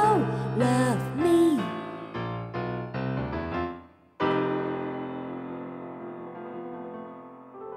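Closing bars of a voice-and-piano ballad: a woman's voice holds the last sung note for under two seconds, then the piano plays a short run of chords, stops briefly, and strikes a final chord that rings and slowly fades, with one more soft chord near the end.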